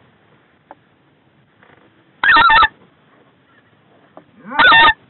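Specklebelly (white-fronted goose) calling blown close by on a goose call: two short, loud bursts of quick high yelping notes, one about two seconds in and one near the end.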